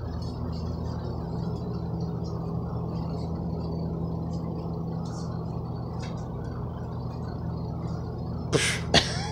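Steady low hum, with two short breathy puffs of air near the end.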